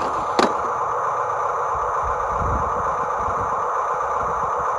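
A steady mechanical hum, with one sharp click about half a second in.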